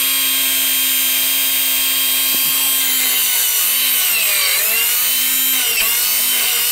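Small brushed DC motor from a children's electric ride-on car, rated 12,000 rpm at up to 9 V, running with a steady whine on 9 V. From about three seconds in its pitch dips and recovers several times as fingers grip the shaft and slow it. It runs properly, though not very powerful.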